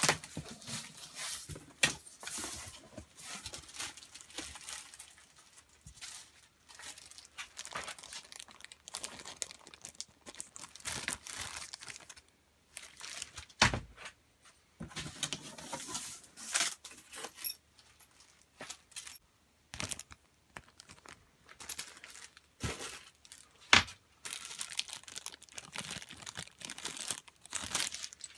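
A cardboard shipping box being opened by hand: tape tearing, cardboard flaps rustling and bending back, and packaging crinkling, with a few sharp knocks, the loudest about halfway through.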